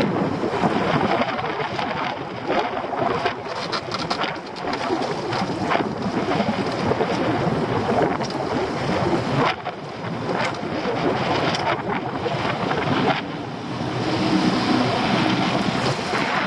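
Wind buffeting the microphone in gusts over choppy sea washing around a small open fishing boat.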